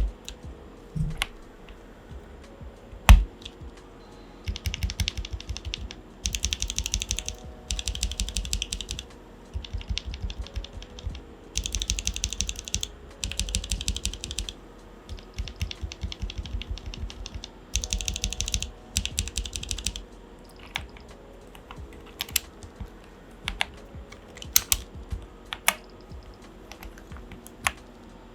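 Mechanical keyboard with Glorious Panda tactile switches being typed on. A couple of single sharp keystrokes come first, then bursts of fast typing with short pauses between them.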